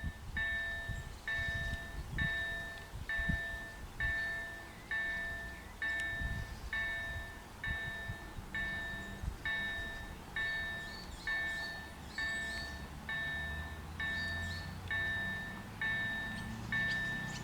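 Railway level-crossing warning bell ringing, the same clear ding repeated evenly about once a second, signalling an approaching train. A low rumble builds under it in the last few seconds.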